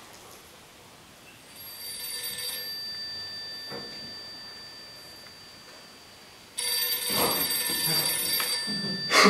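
Telephone bell ringing: a ring about one and a half seconds in that dies away, then a second, louder ring from around six and a half seconds, the call ringing through unanswered at the police station. Two sharp knocks near the end, louder than the ringing.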